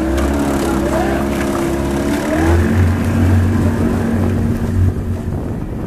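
Outboard motor of a coaching launch running under way, its pitch dropping slightly about two and a half seconds in, with wind noise on the microphone.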